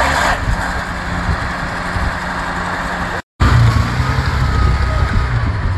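Off-road vehicle engine running steadily. It cuts off abruptly about halfway through, then an engine comes back louder and deeper.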